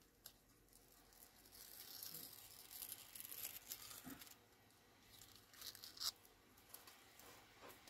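Faint rustling and peeling of paper stickers and cutouts being handled by hand, steadier for a couple of seconds in the middle, then a few sharp crackles about six seconds in.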